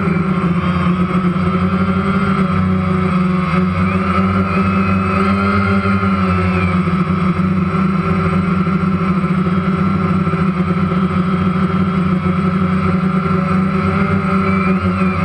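Multirotor drone's electric motors and propellers whirring steadily, heard from the camera it carries, with small shifts in pitch as it manoeuvres.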